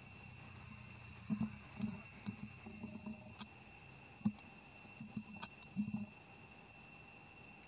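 Steady high-pitched insect drone, with a scattered run of short low sounds between about one and six seconds in.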